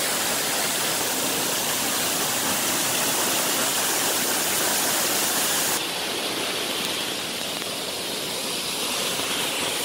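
A waterfall rushing steadily into a lake, heard at close range. About six seconds in it drops slightly in level and loses some of its high hiss.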